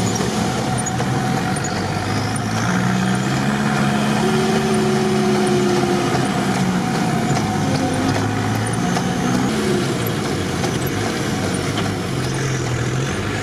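Off-road vehicle's engine heard from inside the cab while driving, its note rising and falling several times as the speed changes, over steady road noise.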